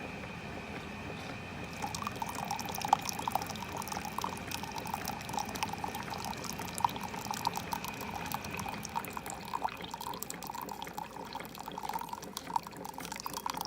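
Keurig coffee maker dispensing white vinegar into a measuring cup during a descaling flush, the liquid trickling and splashing from about two seconds in over a steady high whine.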